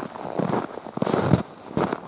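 Footsteps in snow: each step a dry, creaking crunch, several steps in a walking rhythm, with the loudest step around the middle. The squeak of snow underfoot is the sign of hard frost.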